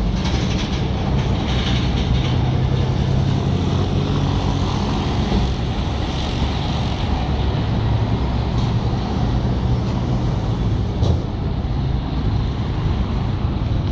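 Volvo crawler excavator's diesel engine running steadily, a low continuous drone.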